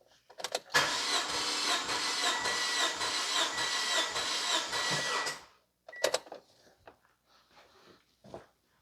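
Starter motor cranking a 2005 Toyota Corolla's 1.8-litre four-cylinder engine with its spark plugs out, for a compression test, with a steady whine and an even beat. It runs for about four and a half seconds and stops suddenly, and a few light clicks follow.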